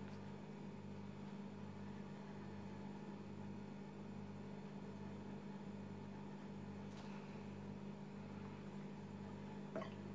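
Steady low electrical hum with a slow, even throb about one and a half times a second, and a single short click near the end.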